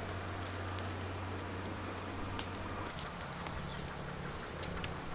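Light rustling and scattered sharp clicks of twigs and leaves as a person climbs a tree barefoot, over a steady low hum and a background hiss.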